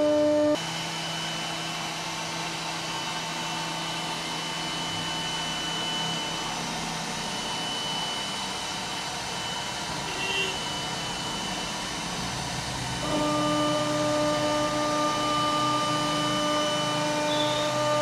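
CNC router spindle running with a steady whine and cutting noise as it machines wood. It drops abruptly quieter just after the start, and the louder whine comes back about thirteen seconds in.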